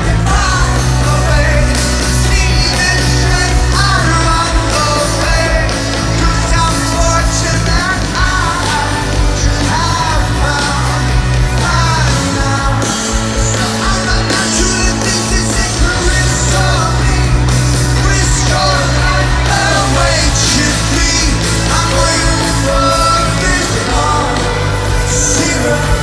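Live rock band playing a song with a lead singer, heard from inside the audience at a loud outdoor concert. Bass notes hold steady beneath the sung melody.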